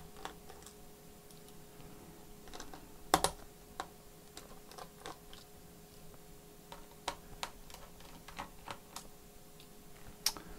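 Irregular light clicks and taps of a small screwdriver on the screws that hold a ThinkPad X1 Carbon laptop's battery, with one louder knock about three seconds in, over a faint steady hum.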